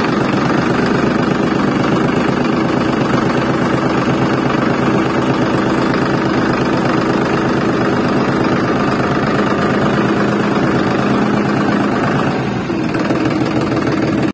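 A motor running steadily with a fast, even rattle. It stays at a constant pitch, falters briefly near the end and then cuts off abruptly.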